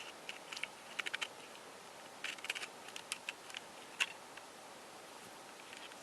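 Small hard clicks and clacks of resin twisty-puzzle pieces being handled and moved, coming in short irregular clusters, with one sharper click about four seconds in.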